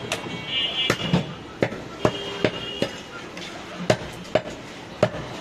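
A butcher's knife chopping mutton on a wooden log chopping block: about a dozen sharp, uneven chops, roughly two a second.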